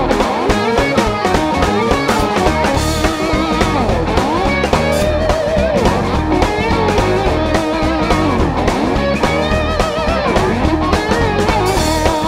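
Live rock band playing with no vocals: electric guitar with bending notes over bass and a steady drum beat.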